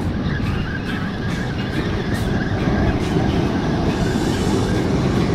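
Surf washing over rocks and wind buffeting the microphone make a steady loud rush, with the faint whir of a spinning reel being cranked as a fish is reeled in.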